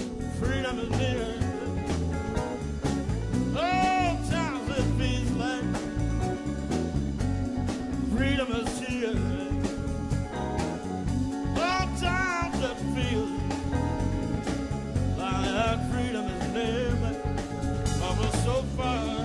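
Live band playing a slow blues-style arrangement of a spiritual: drums, bass and a sustained keyboard chord under a lead line that wavers with vibrato and comes in short phrases.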